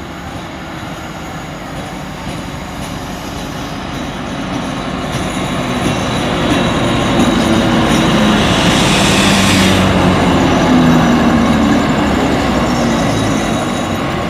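An Alsthom diesel-electric locomotive with a Caterpillar engine runs past close by at the head of a passenger train. Its engine drone builds and is loudest from about seven to eleven seconds in, with a brief hiss about eight seconds in, then eases as the coaches roll by behind it.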